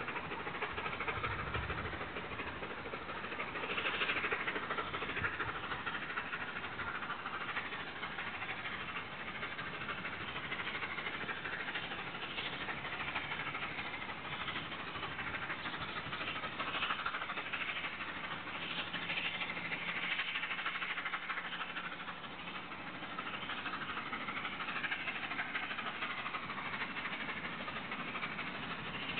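Steam locomotive working hard on a train, heard from a distance: a steady rushing exhaust that swells and fades, with no clear separate beats.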